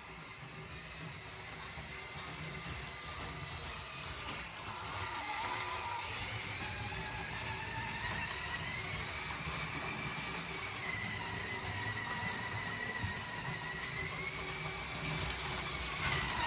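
LEGO Crocodile Locomotive model running on plastic track: a steady low rattle of wheels with a small electric motor whine that slowly rises and falls in pitch, getting gradually louder.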